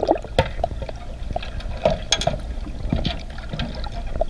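Water heard from under the surface of a pool: irregular bubbling and gurgling with scattered small clicks and knocks, over a steady low rumble.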